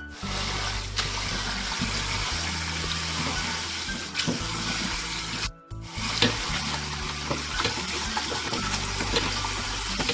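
Tap water running hard into a stainless-steel colander while a hand rubs and rinses cooked noodles, with small splashes and clicks. The sound cuts out briefly about halfway through.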